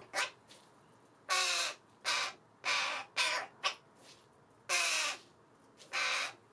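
Fledgling crow giving a string of harsh caws, about seven, with a short pause in the middle. These are begging calls, made with the beak gaping toward food held out to it.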